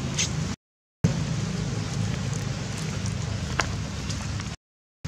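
Steady low background rumble with a few faint ticks and rustles, cut by two short dead-silent gaps, one about half a second in and one near the end.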